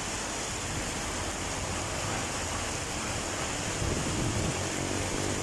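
Heavy rain pouring steadily. About four seconds in, a vehicle engine comes in under it and grows louder.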